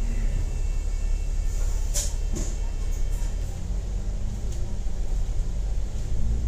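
Steady low rumble of a double-decker bus's engine and running gear, heard from inside the upper deck, with a short sharp hiss about two seconds in.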